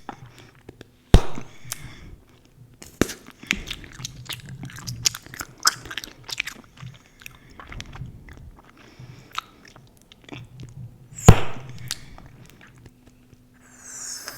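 Close-miked gum chewing: a run of small wet clicks and smacks, broken by two sharp, louder snaps of bubble-gum bubbles popping, about a second in and again late on.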